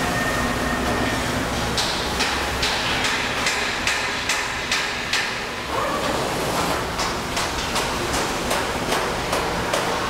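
Factory assembly-floor noise: a steady background din with a run of sharp knocks and clicks, a few a second, starting a little under two seconds in.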